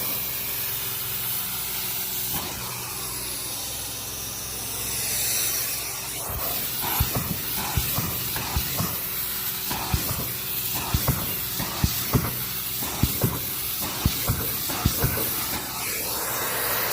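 Carpet-cleaning machine running with a steady hiss over a low hum. From about six seconds in, sharp irregular clicks and ticks are heard over it, roughly one or two a second.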